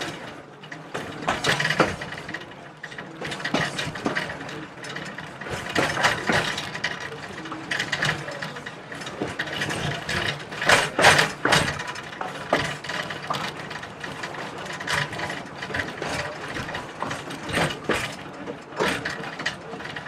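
A moving heritage train: irregular metallic clanks and rattles over a steady running rumble.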